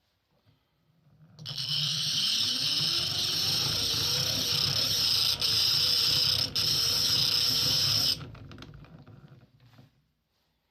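Restored Soviet hand-cranked bench grinder being cranked: its gearing rumbles and rises in pitch as the stone spins up. Then a loud steady grinding hiss of metal held against the turning stone starts about a second and a half in, lasts about seven seconds and stops abruptly. The gears then run down and fade out.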